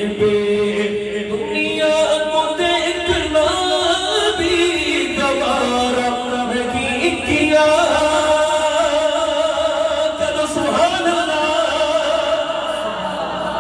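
A male voice singing a naat unaccompanied, with long held, wavering notes.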